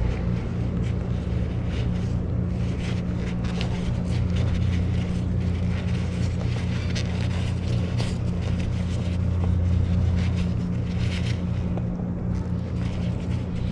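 Deep, steady low rumble, the ground noise (地鳴) heard before an earthquake's shaking arrives. It swells a little after about eight seconds.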